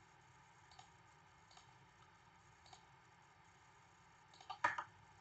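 Computer mouse clicking over faint room hiss: a few soft single clicks, then a louder quick cluster of clicks about four and a half seconds in.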